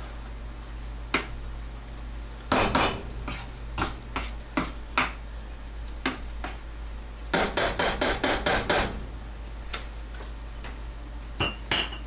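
A metal hand utensil mixing mashed potatoes in a metal saucepan, knocking against the pot. There are scattered knocks, then a quick run of about seven strikes a little past halfway, then two ringing metallic taps near the end.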